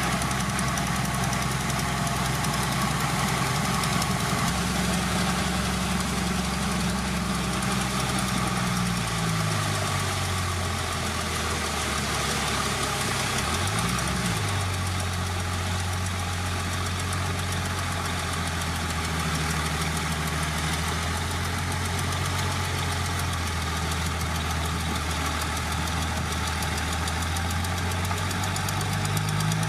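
Heavy diesel engine of earthmoving machinery running under varying load. Engine speed holds high, drops about a third of the way in, gives a brief quick rev about halfway, then runs steadily lower before climbing again at the very end.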